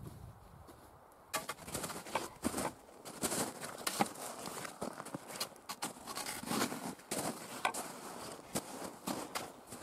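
Footsteps crunching through snow, an irregular run of steps starting about a second in.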